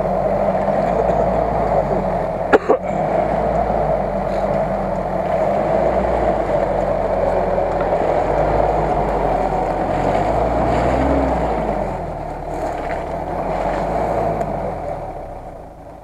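Lada Niva's engine running under load as the 4x4 works through deep mud, its pitch rising and falling. There is a single sharp click about two and a half seconds in.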